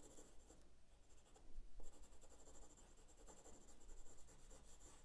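Faint scratching of a graphite pencil shading on paper in light, soft strokes, with a short pause about a second in.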